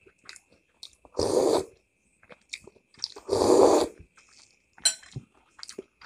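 Close-up eating sounds: small clicks of a metal spoon against a ceramic soup bowl, and two longer noisy slurps of soup from the spoon, one about a second in and one about three seconds in.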